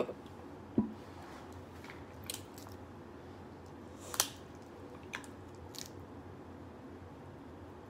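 Crab leg shells being cracked and pulled apart by hand, with close-up chewing: a few short, sharp cracks and clicks, the loudest about four seconds in.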